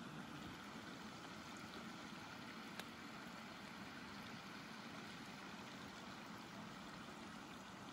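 Water of a small river running, a faint steady rushing babble, with one light click about three seconds in.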